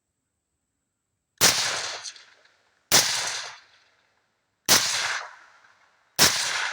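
Four suppressed rifle shots from a PSA JAKL with a Gemtech TREK II suppressor, fired slowly about a second and a half apart, each a sharp crack followed by a decaying echo.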